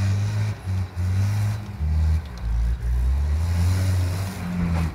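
Mitsubishi Pajero 4x4's engine working hard off-road. It revs in bursts, and the throttle drops off and comes back on several times as it pushes through the scrub.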